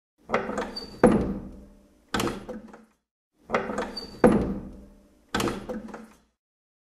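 A door being worked: a rattle, then a sharp bang that rings away, then a shorter thud. The same sequence plays twice, identically.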